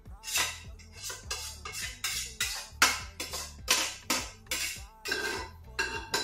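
Background music with a steady beat, over the clanks of a steel cooking pot being tipped and shaken to empty cooked macaroni into a plastic bowl.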